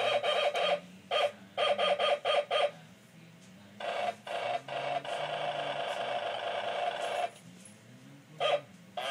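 Electronic toy keyboard beeping the same note in short quick runs as its keys are pressed, then a longer held tone from about four to seven seconds in, and one last short beep near the end.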